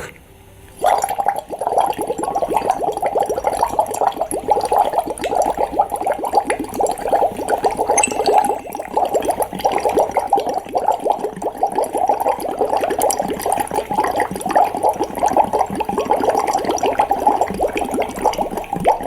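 One long, slow exhalation blown through a drinking straw into a tall glass of water, used as a homemade breathing trainer: continuous steady bubbling that starts about a second in and lasts some eighteen seconds, stopping just before the end.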